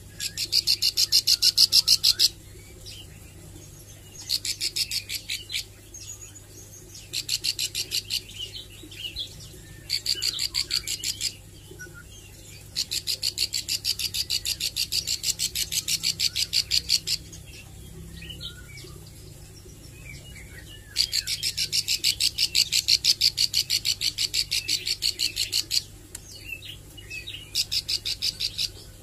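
Caged plain prinia (ciblek sawah) singing in bursts of rapid, evenly repeated high notes, about ten a second, seven bursts of one to four seconds each, with soft single chirps between them. It is a bird still learning its song and practising the fast 'nembak' runs.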